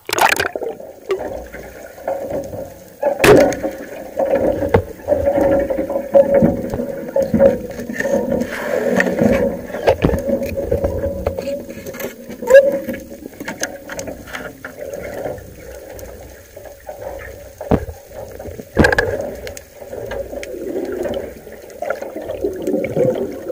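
Muffled underwater sound picked up by a diving camera: churning water and bubbling as the diver moves. Sharp knocks come just after the start, about three seconds in, and again near 19 seconds.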